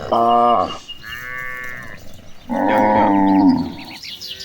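Cattle mooing: a short falling moo at the start, a higher call about a second in, and a long, loud moo from about two and a half seconds in.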